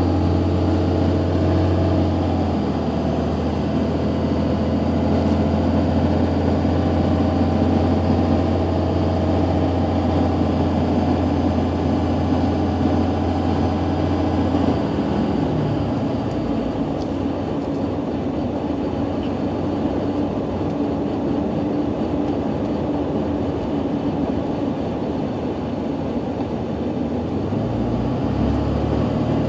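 Car engine and tyre noise heard from inside the cabin while driving: a steady low hum over road noise. The engine note drops about halfway through and rises again near the end.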